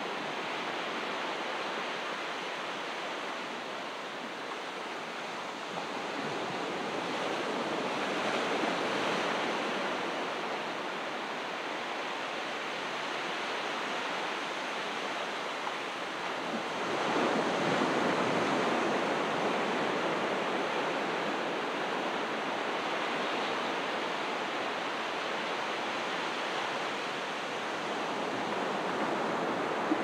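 Calm ocean waves breaking on the shore: a continuous wash of surf that swells as a wave breaks about eight seconds in, and again more loudly around seventeen seconds in.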